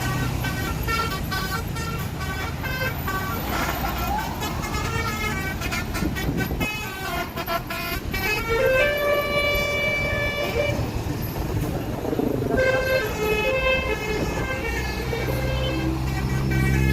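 Basuri melodic horns on tour buses playing a tune of stepped, held notes over a low engine drone, with a rising-and-falling siren sweep about four seconds in.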